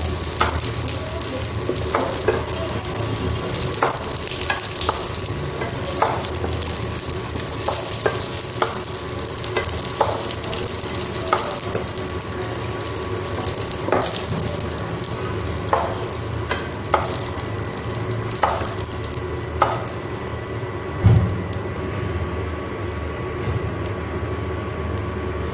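Oil sizzling in a non-stick wok as fried potato and green jackfruit pieces are lifted out with a spatula, the spatula clicking and scraping against the pan every second or two. A dull thump comes late on, and the sizzle thins near the end as the wok empties.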